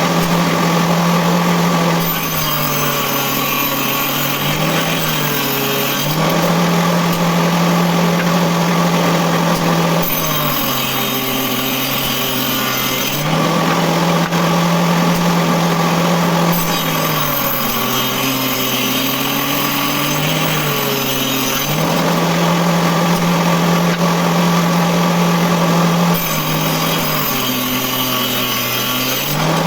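Small circular saw running steadily, its whine dropping in pitch four times as the blade cuts through wood, each cut lasting a few seconds, and rising back to full speed between cuts.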